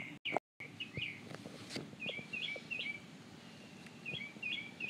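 A bird chirping outside in short, quick down-slurred notes, mostly in runs of three repeated every second or two. The sound drops out completely for a moment near the start.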